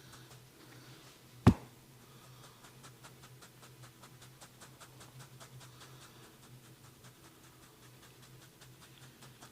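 Hands working a head massage: one sharp, loud crack about a second and a half in, then faint quick light taps or strokes on the head and hair, several a second, for a few seconds.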